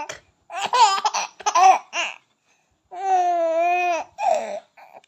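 A baby laughing: a run of short, choppy laughs, then after a brief gap one long held note of about a second, and a last short laugh.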